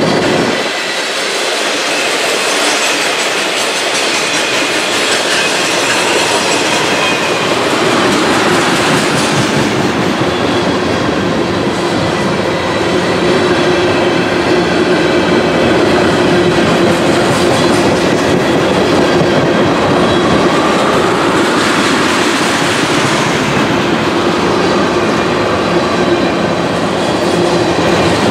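Freight train of tank cars rolling past, loud steel wheels rumbling on the rails, with a steady whining tone over the rumble.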